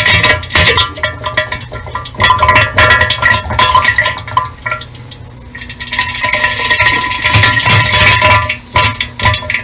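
Diarrhea sound effect: rapid wet sputtering and splattering crackles, with a brief let-up about five seconds in before another dense run of spatters.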